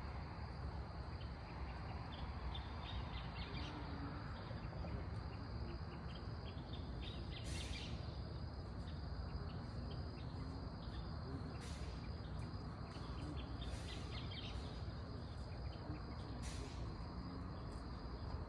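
Night-time outdoor ambience: a steady low rumble, with insects trilling and many short chirps over it. A brief hiss comes four times.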